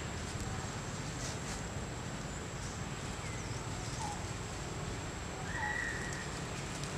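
Forest ambience: a steady low background hiss and a constant high-pitched whine, with a few short chirps and small sliding calls from birds or monkeys. The loudest is a held high call about five and a half seconds in.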